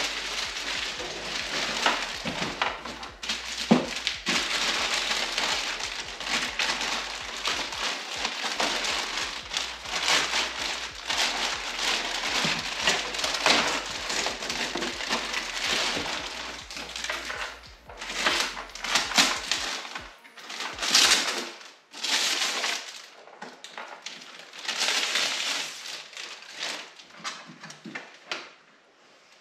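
Clear plastic packaging crinkling and crackling as a tail light assembly is pulled out of its bag and wrap. The crackling is dense and continuous at first, then comes in separate bursts in the last third.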